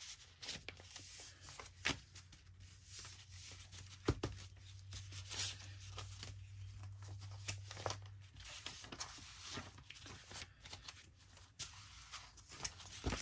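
Paper journal pages being handled and rearranged, with soft rustles and light taps. A faint low hum runs for several seconds in the middle.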